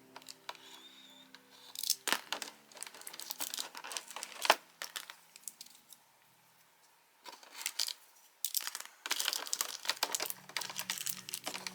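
Packaging being unwrapped by hand: irregular crinkling and crackling with some tearing, pausing briefly about six seconds in, then picking up again more densely.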